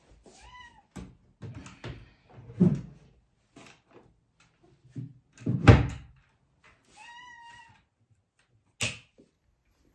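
A domestic cat meows twice, once about half a second in and again around seven seconds, waiting to be fed. Between the meows come knocks and thumps from the cabinet and bowls being handled, the loudest just before six seconds, and a sharp click near the end.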